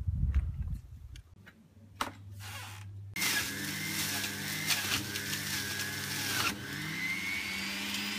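Electric centrifugal juicer with its motor running loud and steady from about three seconds in, its whine wavering down in pitch and climbing back up.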